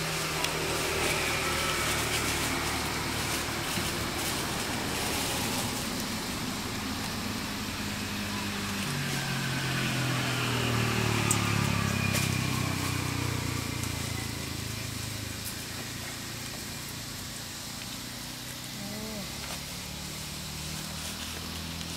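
A steady low engine hum. Its pitch steps down and it grows louder about nine seconds in, then fades away.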